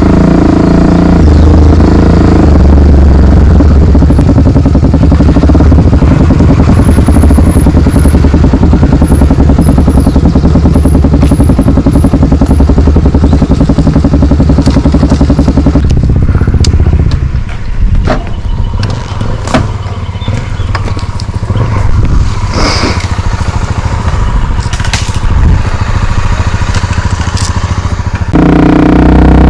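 Honda XR 250 Tornado's single-cylinder engine running while under way, loud and steady. About 17 seconds in it falls quieter for some ten seconds, with scattered knocks, scrapes and clatter. Near the end the loud running returns.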